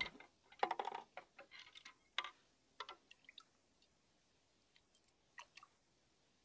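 A hand splashing into a glass tank of water and lifting out a small object, with water dripping and splashing back into the tank: a series of irregular small splashes and ticks, most of them in the first three seconds, then a few faint drips.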